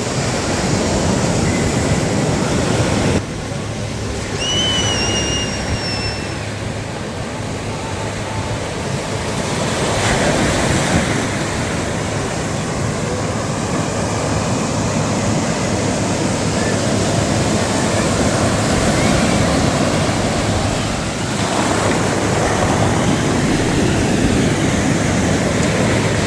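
Sea surf breaking and washing up the beach, swelling and easing in waves. A short high whistle sounds about five seconds in.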